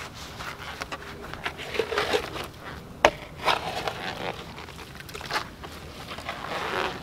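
Shovel blade digging and scraping loose soil out of a hole, a run of uneven scrapes and crunches with one sharp knock about three seconds in.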